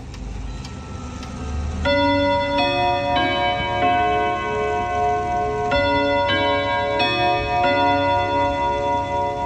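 A French ODO 54/8 wall clock chiming a melody on its 101 rod gong of tuned steel rods. The struck notes ring on and overlap, about one and a half a second, in short phrases. The chime begins about two seconds in.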